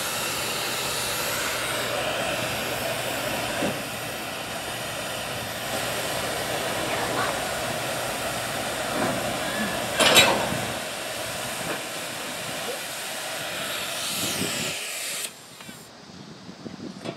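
Steady hissing noise at a freight car coupler under repair, with one sharp metal clank about ten seconds in; the hiss cuts off abruptly near the end.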